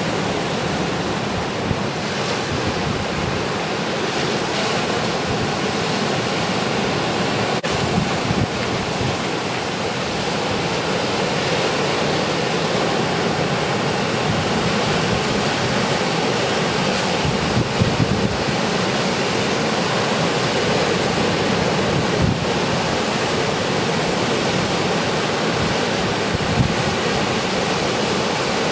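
Ocean surf breaking steadily at a river-mouth beach, with wind buffeting the microphone.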